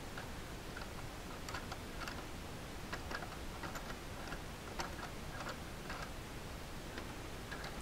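Faint, irregular light metallic ticks and clicks as the threaded body of an Irwin Hanson sliding T-handle tap wrench is turned by hand in a thread-chasing die held in a vise.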